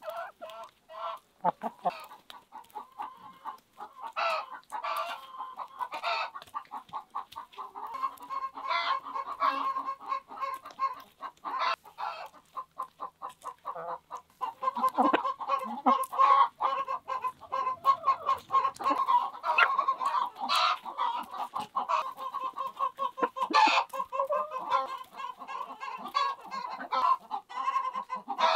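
Several domestic hens clucking steadily while pecking at a raw corn cob on the ground, their beaks striking in quick irregular taps.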